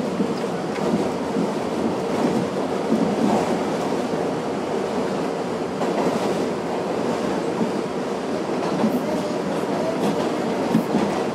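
R62A subway train running through a tunnel, heard from the front car: steady wheel and track noise.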